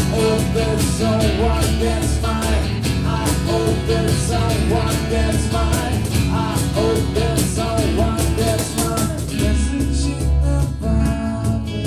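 A band playing a rock song with guitars, and a melodic line bending in pitch over it. About nine and a half seconds in, the sound thins out.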